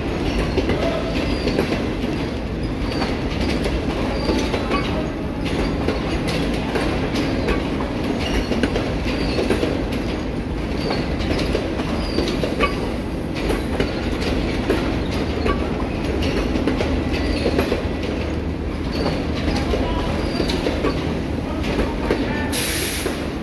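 Pakistan Railways Green Line Express passenger coaches rolling past along a station platform: a steady wheel-and-rail rumble with repeated clicking over the rail joints and faint wheel squeals. A brief hiss comes near the end.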